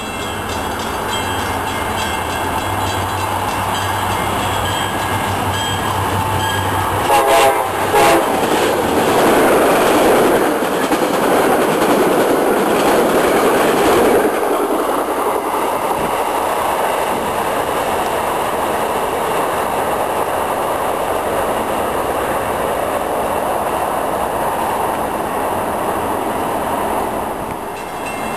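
MBTA commuter train approaching and passing close by: a low steady diesel engine drone, then short horn blasts about seven seconds in, followed by the loud rumble of the train going by, which eases after about halfway and fades near the end.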